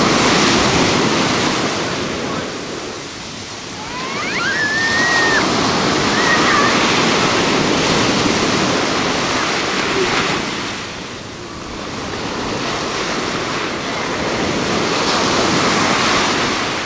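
Ocean surf breaking on the shore, the rush of water swelling with each breaker and falling back between them. A short high cry rises and holds briefly about four seconds in.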